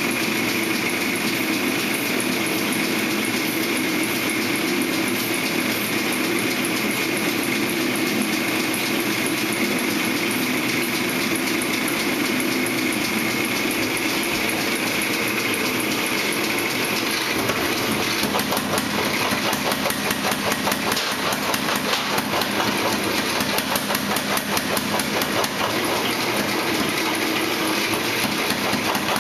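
A forge runs with a steady roar. About two-thirds of the way in, fast, evenly spaced hammer blows on hot metal start over it.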